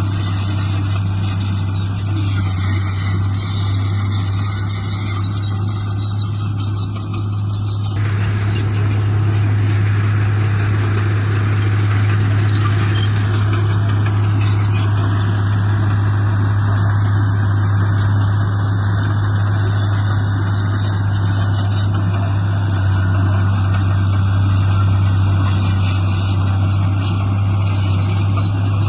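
Heavy diesel engine of a bulldozer running steadily with a deep hum. It grows louder and noisier about eight seconds in, as if taking on load, and a brief high squeal dips and rises in pitch about halfway through.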